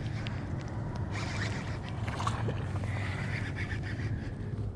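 A fishing reel winding in two short spells, with small clicks and scrapes against the kayak, over a steady low rumble, as a hooked largemouth bass is reeled in.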